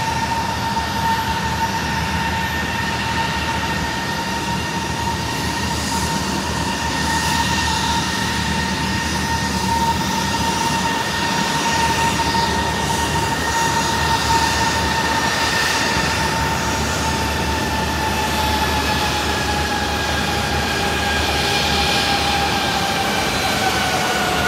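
Airbus A321 jet engines whining at taxi power: a steady high whine over a rushing noise, the whine's pitch dropping slightly over the last few seconds.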